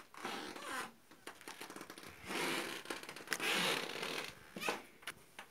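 Soft rustling and breathy hissing from people moving quietly, in several short bursts with a few small clicks.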